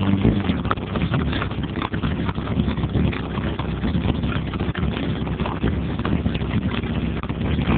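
Rapid, irregular clattering and rattling over a low rumble, typical of objects bouncing and buzzing on a car subwoofer driven hard with bass.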